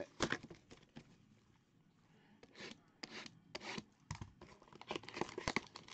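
Hands rubbing and scraping a shrink-wrapped cardboard trading-card box as it is opened, in a string of short, irregular rustles and scrapes with some tearing of the plastic wrap.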